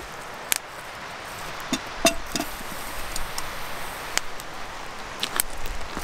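Wood campfire crackling, with scattered sharp pops and snaps over a steady hiss. A metal kettle is set down on the fire, with a brief metallic clink about two seconds in.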